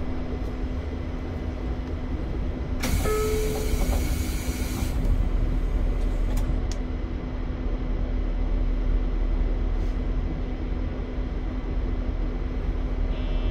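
Electric train at a station platform with a steady hum. About three seconds in, a loud hiss of compressed air lasts about two seconds as the doors close or the brakes release. Two sharp clicks follow, then a deeper low rumble.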